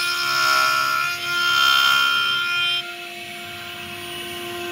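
STYLECNC STM1325-R1 CNC router's spindle running with a steady high whine over the rasp of its cutter carving a rotating wooden blank on the 4-axis rotary. About three seconds in, the sound drops suddenly, then slowly builds again.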